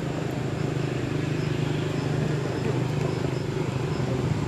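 A steady low rumble of a running vehicle engine, with faint high pips repeating about every half second.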